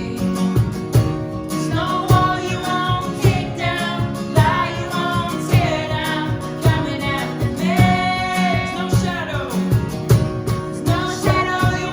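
Live worship band playing a contemporary worship song: a woman singing the lead melody over sustained chords and a steady drum beat.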